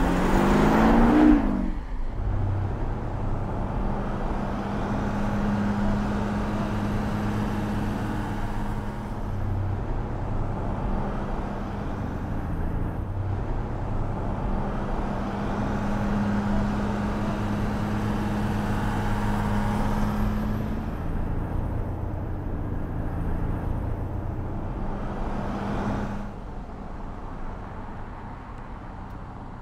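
Audi A7 Sportback driving past: its engine note rises and peaks loudly as it goes by about a second in. A steady engine drone with tyre and road noise follows, and it drops noticeably quieter near the end.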